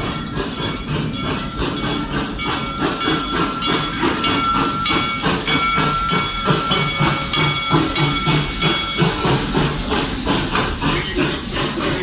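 Serengeti Express park train passing close by, with a quick, even rhythmic beat and a hiss. A steady high ringing tone is held for several seconds in the middle.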